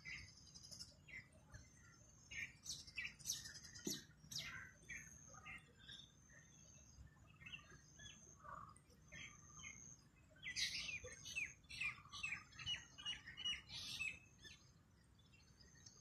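Several small songbirds chirping and singing, with thin, high whistled notes repeating throughout. About two-thirds of the way through comes a louder run of rapid chirps, several a second.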